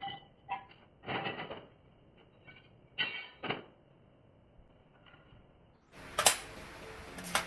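Several separate short knocks and clatters, then a steady hiss with two sharp clicks near the end.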